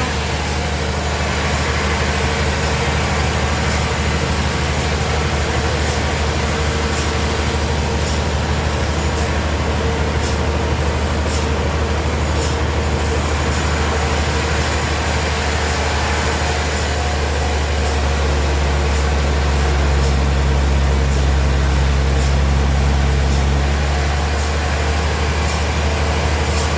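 Sawmill machinery running with a steady low hum. It grows louder and deeper for several seconds in the latter part, with scattered light clicks and knocks.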